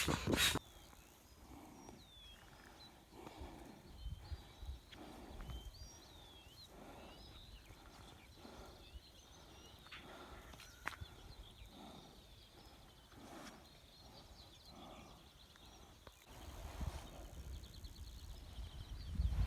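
Faint outdoor animal sounds: a slow, even run of soft steps, about one and a half a second, with small high chirps over them.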